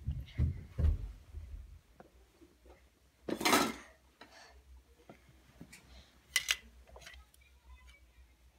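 Plastic toy dishes and toy food being handled and set down: light clacks and sharp clicks, a pair of them a little past six seconds in, with low handling thumps in the first second or so. A short noisy rush about three and a half seconds in is the loudest sound.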